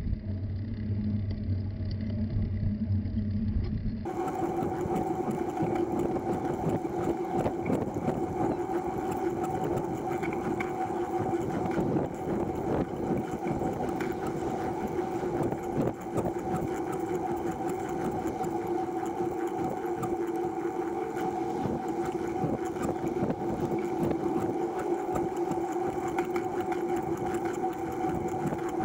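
A recumbent trike rolling along a paved path: a steady mechanical whir from its drivetrain with a constant two-tone hum, over tyre and wind noise. For the first few seconds the sound is duller and muffled, then it opens up about four seconds in.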